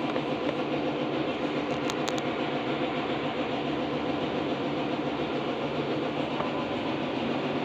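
A steady mechanical drone, an even hum and rumble, with a few faint ticks about two seconds in.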